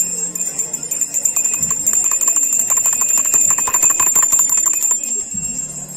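Small hand bells shaken rapidly in quick clustered strikes for about four seconds, loudest in the middle. These are the altar servers' bells that ring in a Corpus Christi procession.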